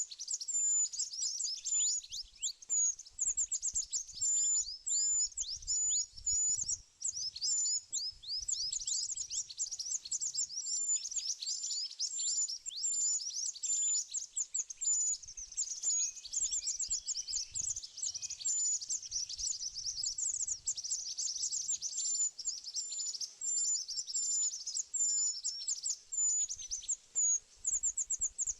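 A small bird calling without pause in a rapid series of high, thin chirps, most of them sliding quickly downward in pitch, with a short sharp note repeated about once a second above them.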